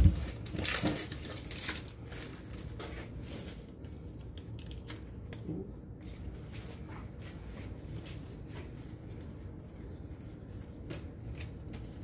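Trading cards and a foil booster-pack wrapper being handled: a few louder rustles and taps in the first two seconds, then faint soft rustling and small clicks.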